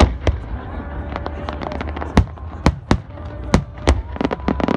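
Aerial fireworks bursting: about a dozen sharp bangs at irregular intervals, with a quick run of bangs near the end.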